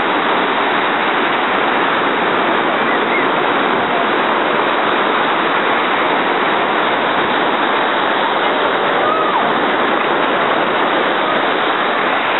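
Ocean surf breaking and washing up the sand: a steady, unbroken rush of water.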